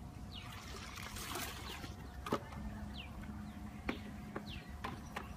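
Faint splashing and trickling of water as a bucket is dipped into a river and lifted out, followed by a few sharp knocks.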